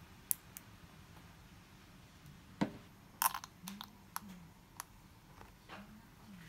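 Plastic condiment squeeze bottles squirting mustard and then ketchup onto a hot dog: a scattered string of small sharp clicks and soft squelching splutters, the loudest around three seconds in.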